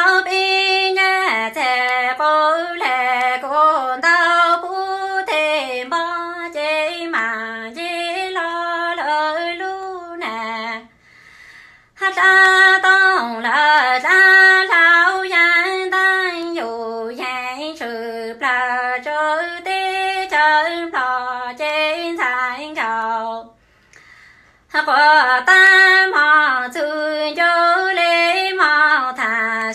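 A woman singing kwv txhiaj, Hmong sung poetry, unaccompanied. She sings in long melodic phrases and breaks off twice for a breath, about a third of the way through and again near the end.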